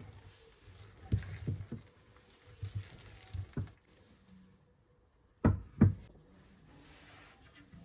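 Irregular knocks and thuds of kitchen handling, with two louder knocks close together about five and a half seconds in.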